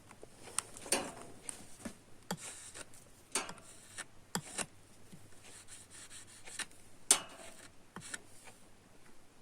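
Faint scattered clicks and scrapes of a soldering iron and small metal and plastic parts being handled while a USB plug is soldered. A louder click comes about seven seconds in.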